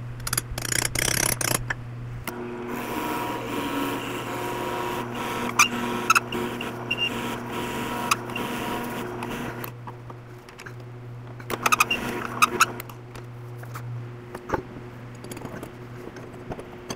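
Drill press boring into a hickory block with a large Forstner bit, running steadily for about seven seconds. It is preceded by a short run of sharp taps and followed by a few scattered clicks and knocks.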